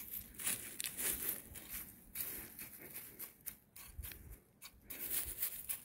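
A metal-bladed hand hoe scraping loose soil and dry leaf litter in a run of short, irregular strokes, raking earth back over a replanted root.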